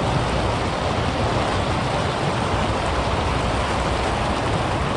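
Steady rush of flowing creek water through a current.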